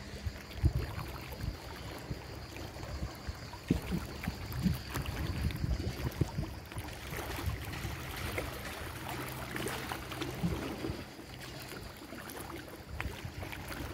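Water splashing and sloshing in irregular strokes, over a steady low hum.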